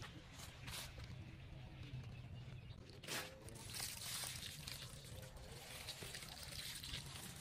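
Water pouring from a kettle onto loose soil, a steady splashing trickle starting a little past halfway, with a short knock just before it.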